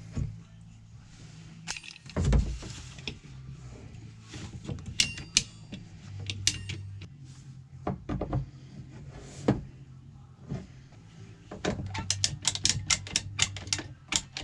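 Scattered clicks and knocks of PEX pipe, fittings and tools being handled during plumbing assembly, with a heavier thump about two seconds in and a quick run of rapid clicks near the end, over a low steady hum.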